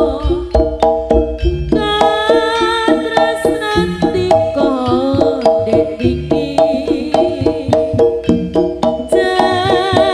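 Live jaranan music: Javanese drums beating a quick, steady rhythm under a wavering melody line with vibrato and a dense layer of pitched ensemble tones.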